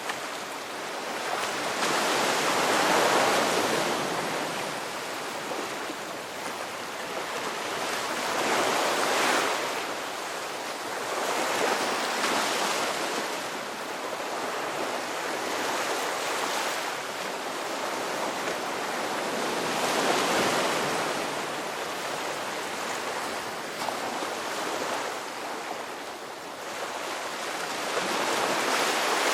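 Sea waves breaking and washing up on a shore, the surf swelling and ebbing every few seconds.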